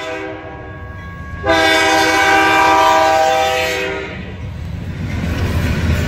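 BNSF freight diesel locomotive's three-chime K3LA air horn sounding for a grade crossing. A held chord fades, then a loud long blast starts about a second and a half in and lasts a couple of seconds. It is followed by the low rumble of the locomotive passing close by.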